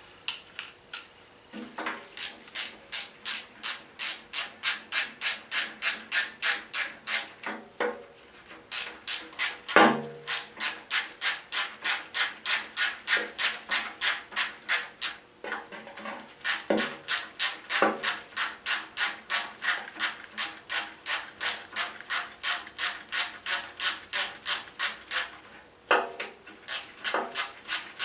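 Hand socket ratchet clicking in a steady rhythm, about two to three strokes a second, as bolts are run out. It pauses a few times, and there is a louder metal knock about ten seconds in.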